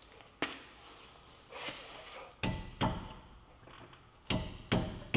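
Brake rotor and hub assembly being rocked and tugged by hand on the front of a 2011 Dodge Durango, clunking metal on metal as the hub is worked loose. There is a single knock about half a second in, a scrape, and then two pairs of sharp clunks with a short ring.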